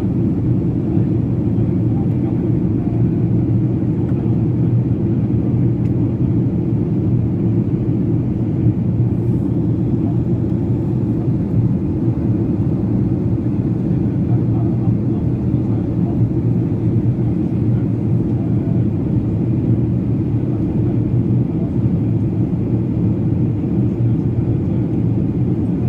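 Boeing 737-800 on approach, its CFM56-7B engines and airflow making a steady low rumble as heard from inside the cabin.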